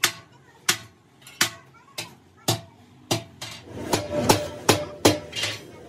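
Repeated sharp hammer-like knocks on metal, about one every two-thirds of a second, coming quicker and with some ringing near the end.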